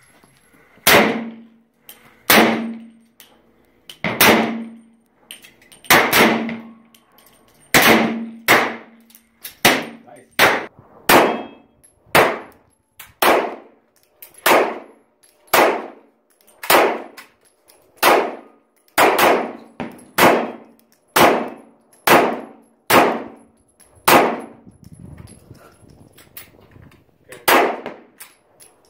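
A steady string of about two dozen gunshots, roughly one every second or so, each followed by a ringing metallic clang typical of bullets striking steel targets.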